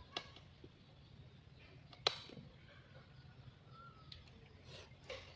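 Faint steady low hum with a few sharp clicks, the loudest about two seconds in.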